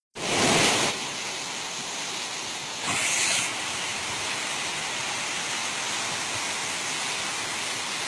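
Muddy monsoon floodwater rushing in a torrent, a steady hissing rush of water. Two brief louder hissing bursts come right at the start and about three seconds in.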